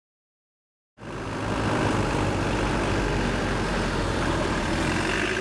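Mercedes-Benz Sprinter van's engine running steadily as the van drives slowly along a dirt road, coming in suddenly about a second in.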